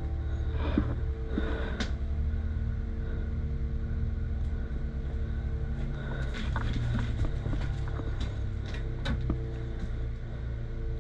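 Steady low rumble of movement and handling noise on a worn camera's microphone, with scattered sharp clicks and snaps clustered about six to nine seconds in.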